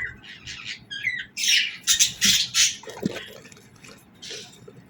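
Budgerigars (parakeets) chirping and chattering: a run of short, high chirps with a cluster of loud, harsh squawks about a second and a half in.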